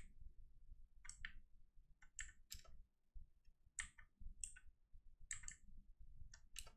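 Faint clicks from a computer's mouse and keyboard: about six single clicks or quick pairs of clicks, roughly a second apart.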